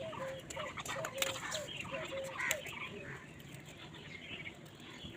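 A bird calling: a short note with an upward flick, repeated about three times a second, stopping about two and a half seconds in. Faint clicks sound around it.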